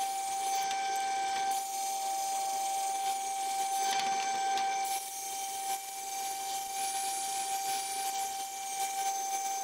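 Cordless angle grinder with a flap disc grinding down welds on steel square tube, a hissing grind over a steady high whine.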